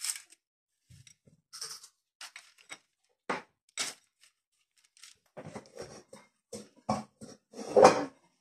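Scattered short clicks and light scrapes of kitchen handling: a small glass bowl and its contents being worked over a baking tray while egg white is brushed onto braided dough. The clicks come thicker from about halfway, with a louder clatter near the end.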